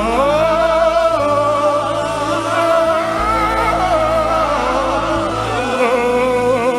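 Congregation and worship band singing a slow gospel worship song, many voices holding long wavering notes over sustained bass and keyboard chords.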